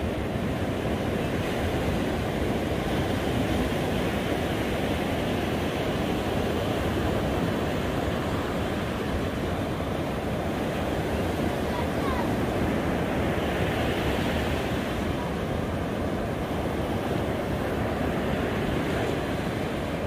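Ocean surf breaking and washing up a sandy beach, a steady, unbroken rush of waves with no separate crashes.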